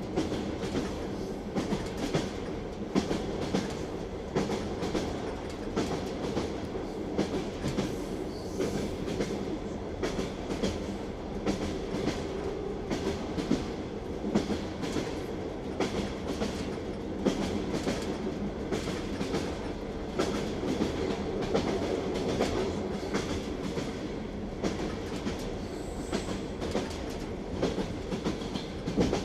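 Train wheels clicking and knocking over the rail joints of a moving train, over a steady rolling rumble with a low hum.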